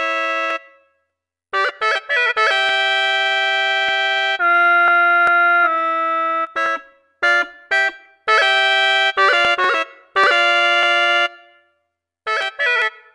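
Sampled hulusi, the Chinese gourd flute, from the Ethno World 4 library playing short melodic licks of held and quickly ornamented notes, in several phrases with brief silences between them.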